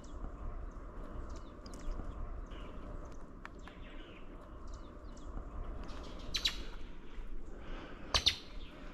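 Wild birds calling with scattered short chirps, with two louder, sharp sounds about six and eight seconds in.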